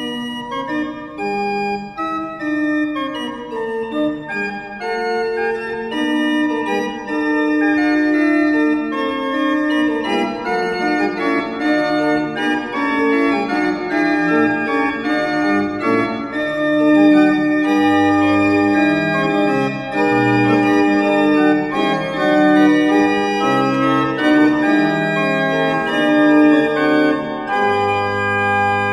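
Background music of slow, held chords with a moving upper line; deep bass notes come in about two-thirds of the way through and again near the end.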